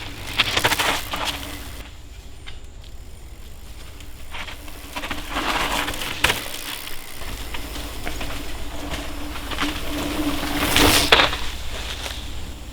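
Mountain bike ridden on a cross-country trail: tyre noise on the dirt comes in surges, loudest about half a second in and again near the end, over a steady low rumble.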